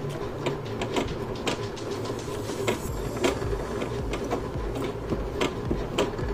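Brother GS1700 electric sewing machine running slowly while stitching a button on: a low motor hum with a sharp click from the needle mechanism on each stitch, about twice a second.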